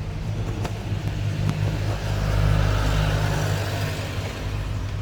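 A motor vehicle passing by, its noise swelling to a peak a little past the middle and then fading, over a steady low hum, with two short clicks in the first second and a half.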